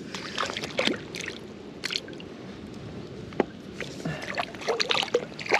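Irregular small splashes, sloshes and drips of water at the belly boat as a freshly hooked perch is brought to the surface and landed.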